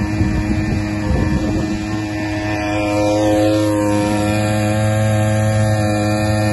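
Small gasoline engine of a portable water pump running steadily at a constant speed, a loud even drone.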